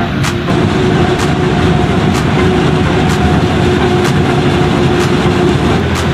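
Self-propelled forage harvester and tractor running steadily under load, the harvester chopping maize, with a sharp click about once a second.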